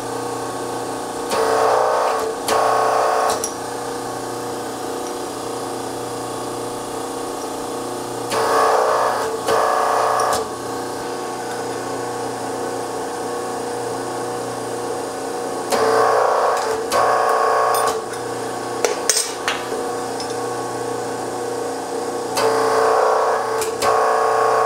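Whitney hydraulic punch and its three-phase hydraulic power unit running with a steady hum, loading up four times about every seven seconds as holes are punched in steel plate. Each punch cycle is a louder strain of the pump in two parts, each about a second long, as the ram goes down and comes back up.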